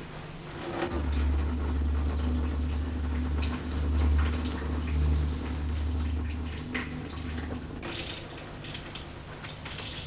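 Liquid poured out of a glass bottle into a sink, splashing and dripping with many small scattered ticks. A low steady hum runs underneath from about a second in until about seven seconds in.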